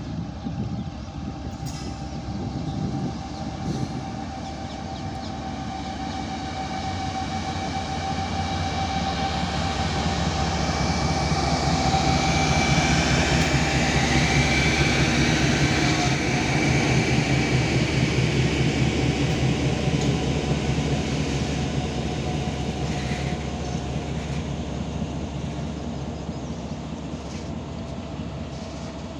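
WDG4G diesel-electric freight locomotive approaching and passing close by, its engine rumble and a steady whine growing to a peak about halfway and dropping in pitch as it goes past. The rumble of the long goods train's wagons rolling by follows.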